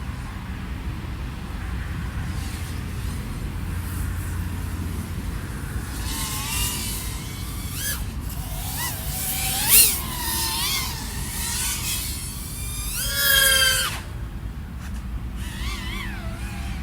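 iFlight AOS 3.5 V5 FPV quadcopter's XING 1504 brushless motors and propellers whining, the pitch swooping up and down with throttle, over a steady low rumble. The swoops begin about six seconds in. The loudest are a brief sharp burst near ten seconds and a hard throttle punch around thirteen seconds that cuts off suddenly.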